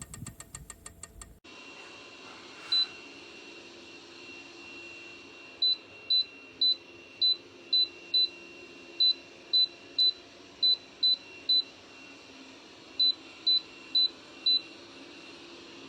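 Short high electronic beeps all at one pitch, as from a Philips HU2716/10 humidifier's control panel: one beep, then a run of about sixteen at roughly two a second with short pauses, over a steady faint hum. A rapid clicking stops about a second in.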